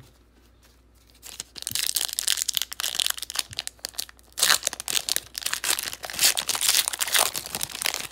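Foil wrapper of a football card pack being torn open and crinkled by hand, in two long bouts of loud crackling after a quiet first second and a half.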